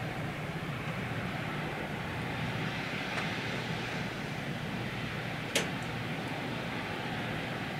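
Steady outdoor background noise, an even rumble and hiss, with one sharp click about five and a half seconds in.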